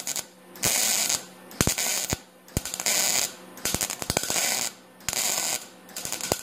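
Wire-feed welder arc crackling on steel sheet metal in about six short bursts of roughly half a second each, each starting with a sharp click, as a patch panel's seam is stitch-welded.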